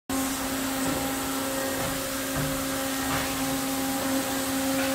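Industrial plastics-processing machinery running steadily: a constant hiss of motors and blowers with a steady low hum.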